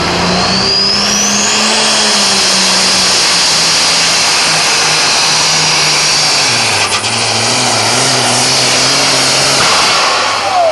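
Turbocharged diesel engine of a modified John Deere pulling tractor running flat out under the load of a pulling sled, with a high turbo whine rising early on. About six and a half seconds in the engine note drops lower, and near the end the turbocharger blows with a nasty sound.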